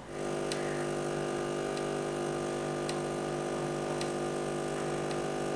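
Espresso machine's pump humming steadily while it pulls a shot into two cups under the portafilter.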